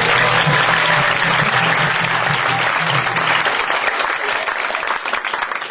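Audience applauding, loud at first and thinning out to scattered claps near the end.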